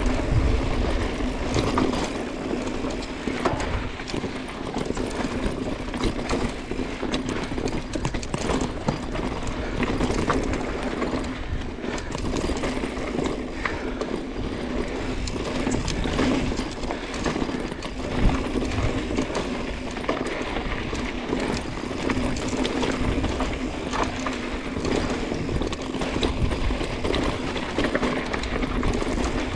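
Mountain bike rolling down a rocky dirt trail: tyres crunching over dirt and stones, with continuous rattling and clicking from the bike and wind rumbling on the microphone. One sharper knock comes about 18 seconds in.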